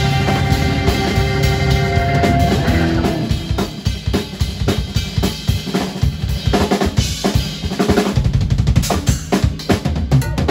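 Live fusion band playing, with bass and keyboard notes held over the drums. About three seconds in, the band drops out and the Pearl drum kit plays alone: a run of fast hits across snare, toms and bass drum that grows denser near the end.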